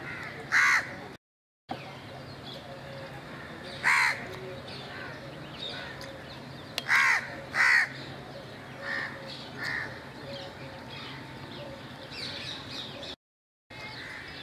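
Crows cawing: about half a dozen short, harsh calls, two of them in quick succession, over steady outdoor background noise. The sound cuts out twice briefly.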